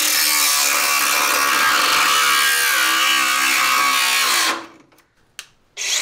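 Cordless angle grinder cutting through a car's front radiator support, a harsh, steady grinding hiss over the motor's hum. It stops about four and a half seconds in, and starts up again just before the end.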